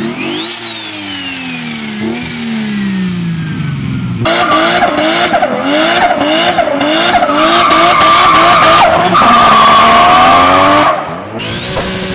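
Turbocharged car engines revving, heard in three short clips. In the first, a high turbo whistle rises and falls with the revs. The loudest middle stretch has quick repeated revs about twice a second under a steady high squeal. Another rising whistle comes near the end.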